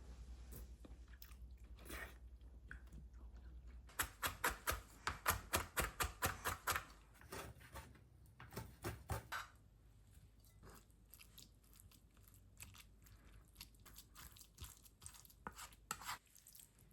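Kitchen knife chopping on a cutting board: a fast, even run of sharp strokes, about five a second, for roughly three seconds starting about four seconds in, then scattered lighter knocks and taps. A low hum stops as the chopping starts.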